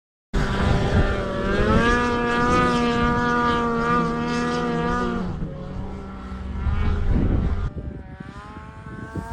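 Snowmobile engine running hard, starting abruptly; its pitch climbs and then holds steady for a few seconds before dropping off. It revs up again near the end.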